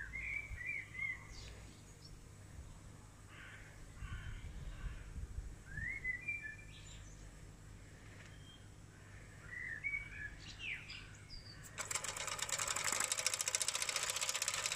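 Songbirds chirping in short rising calls. About twelve seconds in, a small hobby steam engine starts running with a fast, even chuffing, turning a small DC motor used as a generator.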